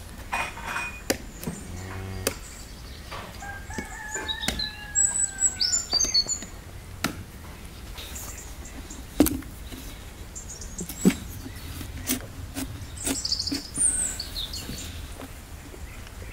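Knife blade cutting and prying into the hard rind of a large pale-skinned pumpkin, giving sharp cracks and clicks, the two loudest about nine and eleven seconds in. Chickens and small birds call in the background.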